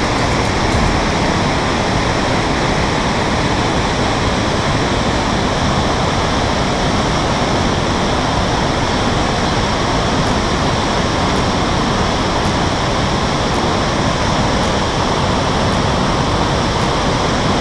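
Steady rush of a white-water glacial meltwater river tumbling over rocks.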